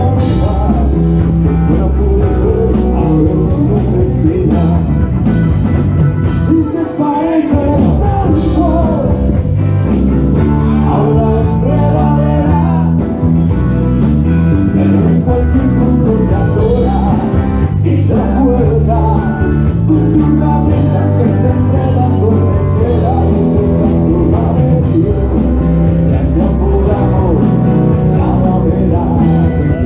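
A live rock band playing loudly: bass guitar, electric guitars and drum kit, with a lead vocalist singing. The bass drops out briefly about seven seconds in.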